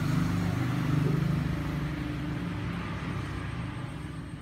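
A motor vehicle engine running steadily, its low hum slowly fading.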